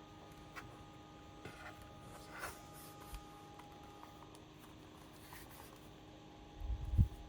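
Faint clicks and light scrapes of a laptop's bottom panel being handled and fitted back on, with one low thump near the end. A faint steady hum lies underneath.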